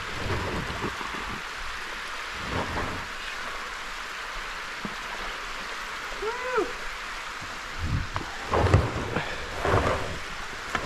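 Steady hiss of rain and running water. About six seconds in there is a short rising-and-falling chirp. Near the end come low scuffs and knocks while a plastic kayak is hauled up the slope on a rope.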